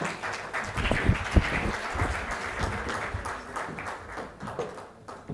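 Audience applauding, dying away near the end. A few low thumps sound about a second in.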